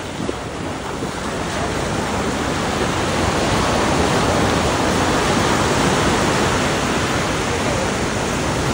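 Ocean surf breaking and washing over the shallows, with wind on the microphone: a steady rush that builds over the first few seconds and then holds.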